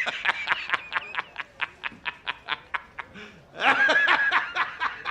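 A high-pitched snickering laugh in two bouts. Each starts on a held note and breaks into rapid short 'he-he-he' pulses, about five a second.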